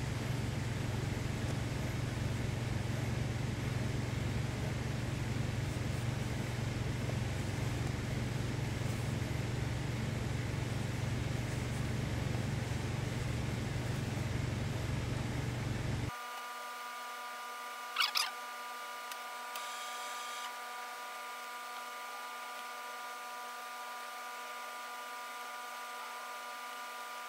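Steady low machine hum that cuts off abruptly about two-thirds of the way through, leaving fainter steady tones and one short rising squeak.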